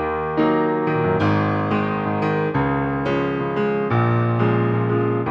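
Piano playing a chord progression with broken-chord arpeggios, fresh notes struck about every half second and ringing on under one another.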